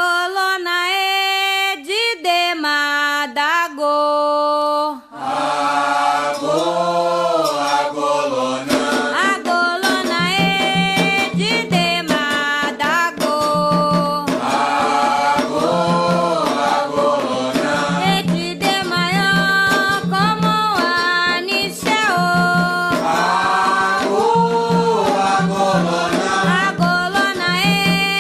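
Afro-Brazilian religious chant (a ponto for Xangô) being sung. A single voice sings alone at first, then about five seconds in fuller singing takes over on top of a steady, repeating low beat.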